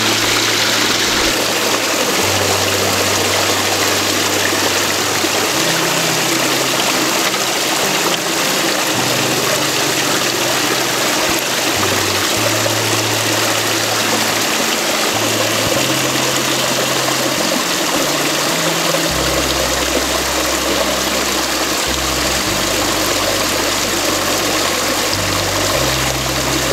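Steady rushing of a river, an even hiss with no breaks. Soft background music runs underneath it, its low notes changing every second or two.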